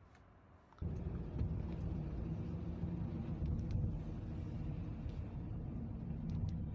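Outdoor city ambience: a steady low rumble of traffic and open air cuts in suddenly about a second in, with a few faint clicks.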